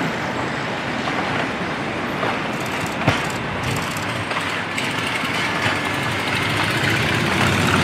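City street traffic: a steady wash of car and engine noise from the avenue below, with one sharp click about three seconds in.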